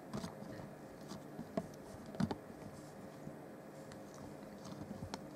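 Quiet room tone with a few faint, scattered taps and rustles, over a faint steady hum.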